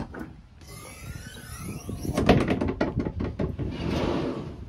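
A boat's in-floor storage hatch being opened: a high wavering squeal, then a run of sharp clicks and knocks as the lid is unlatched and lifted, then a rushing noise near the end.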